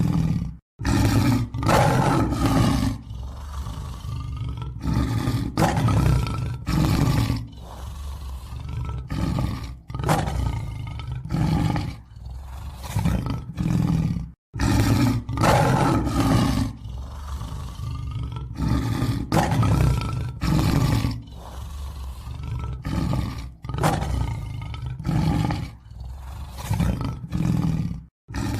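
Lion roar sound effects: a long series of deep roars and growls, one after another, each a second or two long. The sound cuts to silence abruptly two or three times, near the start, about halfway, and near the end.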